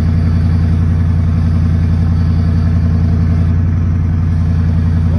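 Truck engine idling steadily and loudly, an even low drone with a fine regular pulse that does not change.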